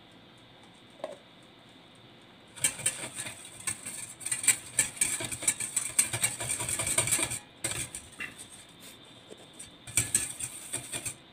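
A wire whisk beating water in a stainless steel bowl to dissolve yellow food colouring powder: a fast clinking rattle of the wires against the metal bowl with sloshing. It starts about two and a half seconds in, dies to scattered clinks around seven and a half seconds, and picks up again briefly near the end.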